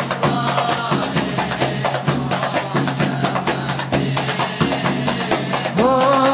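Frame drums of a maulid sholawat ensemble played by hand in a quick, dense rhythm. Singing comes in near the end.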